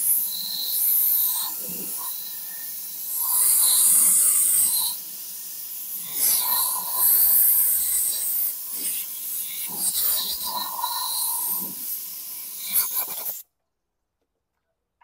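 Compressed-air blow gun firing short and long blasts of hissing air, one after another, blowing water out of the mower's fuel parts. It stops abruptly about two seconds before the end.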